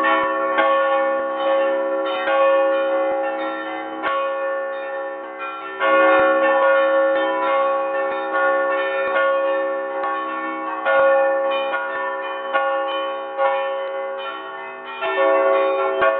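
Church bells rung by hand at close range in the belfry for a full peal. Several bells are struck in quick succession, with a louder stroke every few seconds, and each one rings on under the next.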